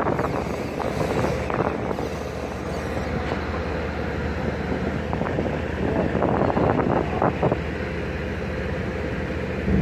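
Tugboat diesel engine running steadily with a low drone, heard from on board, with gusts of wind buffeting the microphone.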